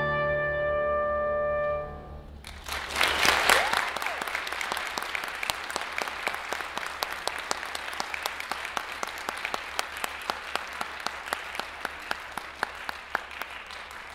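Final held note of a solo voice with piano, cutting off about two seconds in. Audience applause breaks out half a second later, loudest at first and slowly thinning, with single claps standing out toward the end.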